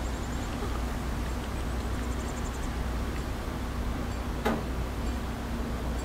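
Steady low outdoor rumble, with faint high rapid ticking twice and a single sharp click about four and a half seconds in.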